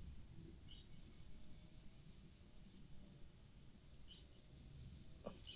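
Faint insect chirping, a rapid run of evenly spaced high pulses over a quiet field background.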